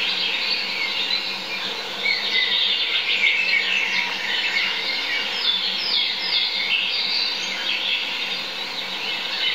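Small songbirds singing in the surrounding forest: a dense, continuous chorus of high chirps and quick falling notes, busiest in the middle.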